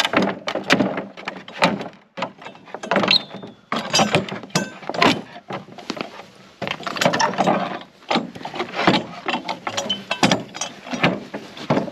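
A steel pallet buster prying deck boards off a wooden pallet: a series of short creaks, cracks and knocks as the nailed boards are levered up and the tool knocks against the wood.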